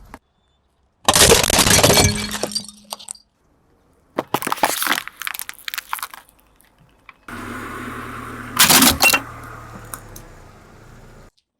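Objects crushed under a car's tyre, crunching and cracking, in three short clips separated by abrupt silent cuts. In the last clip a low steady hum runs beneath, with a loud crunch about nine seconds in.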